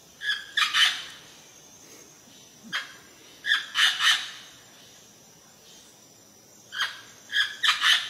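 A parrot calling in loud, harsh squawks in three bouts: each bout is a single note followed by a quick run of two or three notes.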